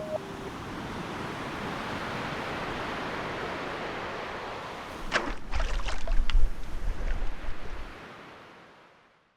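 Sea waves washing in, with wind buffeting the microphone in heavy low gusts and a few sharp clicks about five to six seconds in, then the sound fades out.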